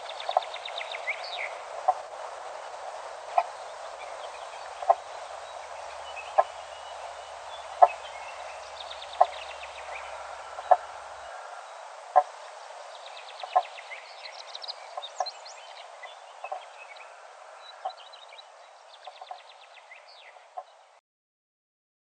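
Dawn birdsong chorus: songbirds trilling and calling over a soft hiss, with a short sharp tick repeating about every second and a half. The sound fades out near the end.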